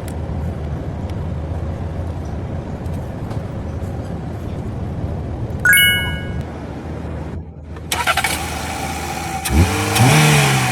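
A car engine running with a steady low hum. About six seconds in there is a short high ringing tone, and after a brief dropout a louder, noisier stretch with a low tone that rises and falls near the end.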